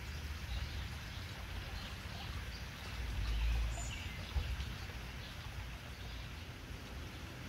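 Outdoor garden ambience: small birds chirping now and then over a low rumble that swells about three seconds in.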